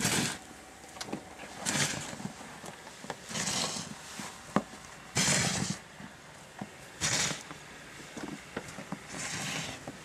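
Footsteps wading through deep fresh snow: slow crunching, swishing steps about every two seconds, with a few small clicks between them.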